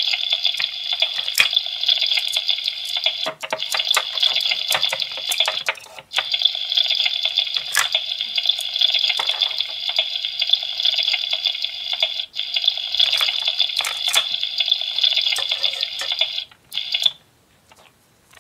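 Electronic sizzling sound effect from a toy frying pan's speaker: a steady hiss like food frying, broken by a few short gaps, that cuts off about a second before the end. Light plastic clicks and taps from toy food pieces being handled sound over it.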